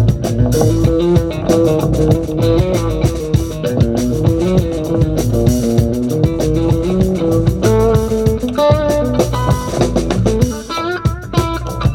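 Live band playing an instrumental reggae groove: electric guitar and bass over a steady, even rhythm. Higher lead guitar notes come in about two-thirds of the way through.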